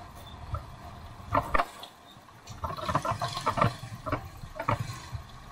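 Motorcycle riding over a rough, unpaved dirt road: a low rumble with irregular knocks and rattles from the bumps, busiest from about two and a half seconds in.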